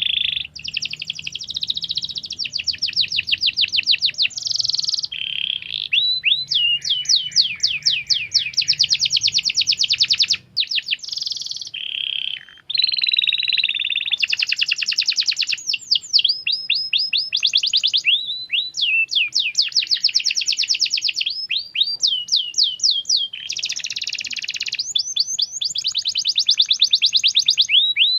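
Canary singing a long, nearly continuous song of fast trills and rolls, made of rapidly repeated high notes and falling sweeps, with two brief breaks partway through.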